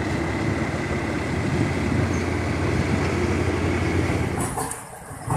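Passenger train running along the track, a steady low rumble with a faint steady whine above it. Near the end the sound cuts to a quieter, thinner one, followed by a short sharp knock.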